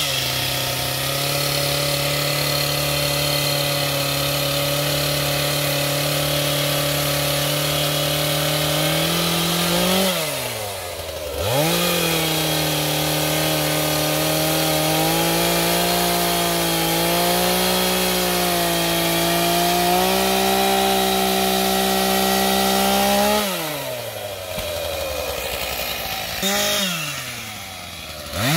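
STIHL MS 251 Wood Boss single-cylinder two-stroke chainsaw running at high revs while cutting into small trees. Its engine note drops off as the throttle is let go about ten seconds in and again near the end, with a brief blip of revs, then climbs back up each time.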